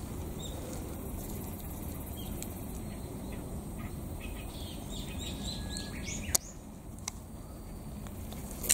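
Wild birds calling in woodland, a run of short chirps near the middle, over a steady low rumble. A few sharp clicks come in the second half.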